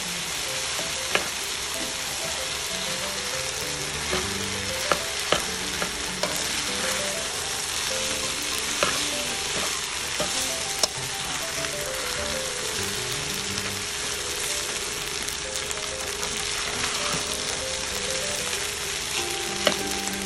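Fried rice sizzling steadily in a hot pan while it is stirred and turned with a metal spatula, with a few sharp clicks of the spatula against the pan.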